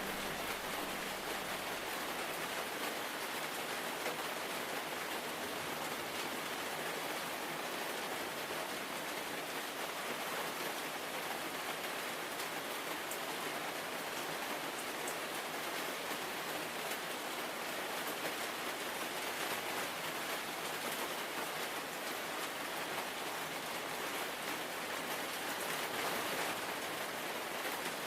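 Steady rain falling on large leaves: an even, dense patter of drops that does not let up.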